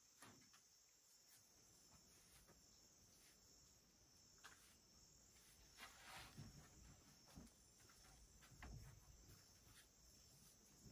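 Near silence with a faint steady insect chorus, and a few soft rustles of cloth as a mosquito net and bedsheet are handled.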